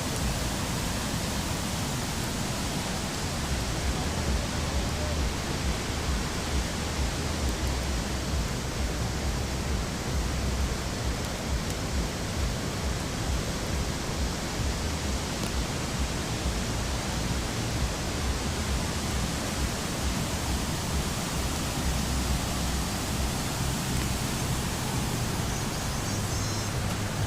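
Steady rush of fast-flowing water, an even roar without breaks.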